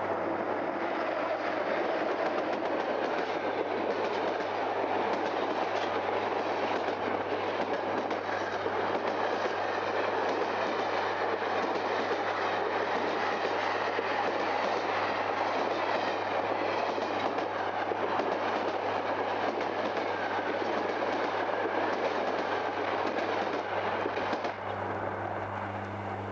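Express train travelling at speed, a steady rumble and clatter of wheels on the rails, dropping away near the end. A low steady hum from the old vinyl transfer runs underneath.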